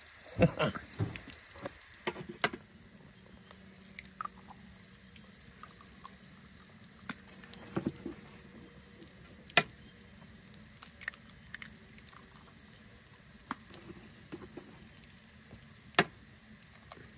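Breakfast food, bacon among it, sizzling faintly on a Weber Q barbecue hotplate, with scattered sharp clicks and taps, about seven in all.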